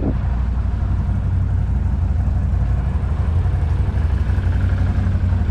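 Quad ATV engine running steadily, a low, even drone with no change in pitch.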